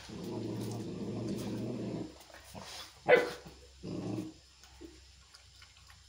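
Chippiparai dog growling low and steadily for about two seconds, then a single sharp bark about three seconds in and a second short growl just after: an aggressive warning.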